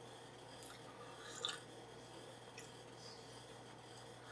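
Quiet room tone with a few faint, short ticks, the clearest about a second and a half in.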